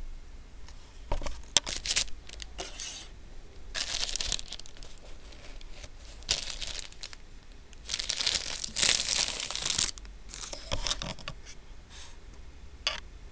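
Hands tearing apart a soft coppe bread roll filled with blueberry jam and margarine, with crinkling of its plastic wrapper: several irregular bursts of tearing and crinkling, the longest in the middle.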